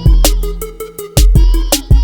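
Hip hop background music with heavy bass kicks and a steady beat.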